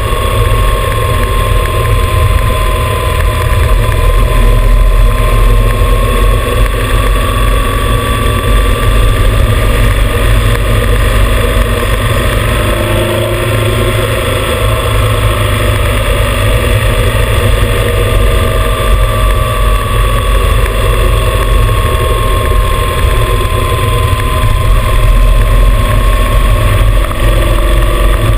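Motorcycle cruising at steady road speed, heard from a camera mounted by the front fender: heavy wind rumble on the microphone over engine and tyre noise, with a thin whine that drifts slowly up and down in pitch.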